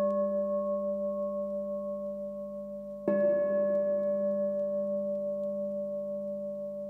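A singing bowl struck and left ringing, its tone fading with a slow pulsing waver. It is struck again about three seconds in.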